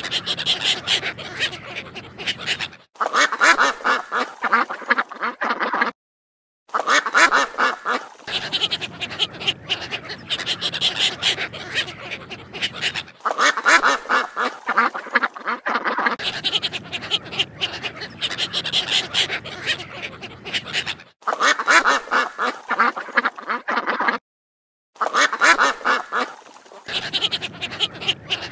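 Ducks quacking in rapid, continuous runs of calls across several spliced recordings, which cut off abruptly with two brief dead-silent gaps, about six seconds in and near the end.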